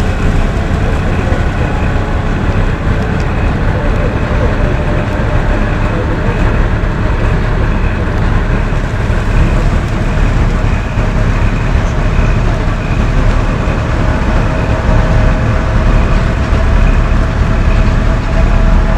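A LAZ-42021 bus heard from inside its cabin while under way: its engine and the road noise run loud and steady, with a steady whine running through them.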